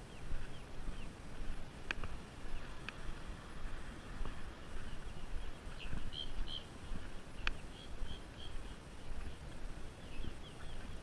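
Short, high bird chirps in small clusters about six and eight seconds in, over a steady low rumble, with two sharp clicks along the way.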